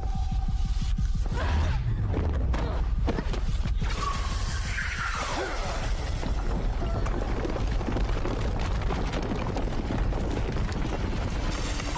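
Fantasy-action film soundtrack: music over a steady deep rumble, with a run of sharp booming, shattering hits in the first few seconds. About four seconds in comes a falling swoop, followed by a dense rush of magic-blast effects.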